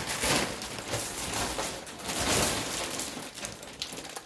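Rustling and crinkling of packaging being handled, in irregular noisy bursts.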